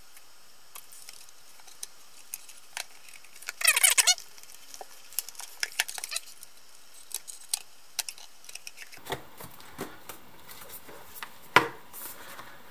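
Plastic clicks, knocks and rubbing as the IKEA Eneby 20 speaker's plastic housing and back panel are handled and fitted together, with a brief high squeak about four seconds in and one sharp click near the end.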